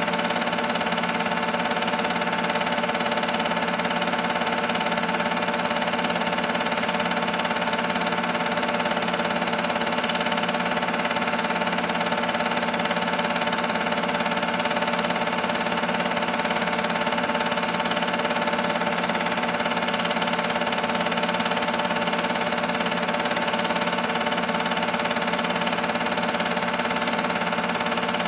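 Film-loop projector running: a steady motor and fan hum with a mechanical whir.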